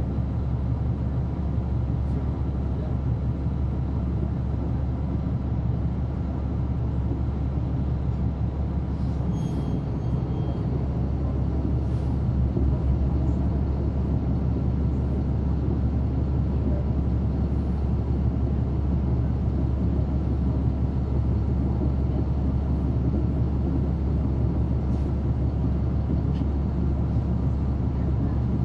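Caterpillar C13 ACERT diesel engine of a 2009 NABI 40-foot transit bus heard from on board, running at a steady speed with a deep, even hum. A few faint clicks and rattles sound now and then.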